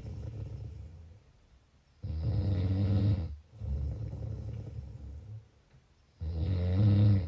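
A sleeping person snoring in a steady rhythm. Two loud, low-pitched snores come about four seconds apart, each followed by a quieter, rougher breath and a short pause.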